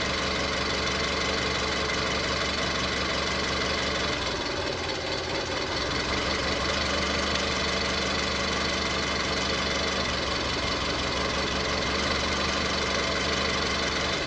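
Petrol car engine idling with a misfire, which later proves to be in cylinder 3, while ignition coil connectors are unplugged one at a time to find the dead cylinder. Its running turns unsettled for a stretch about four to six seconds in.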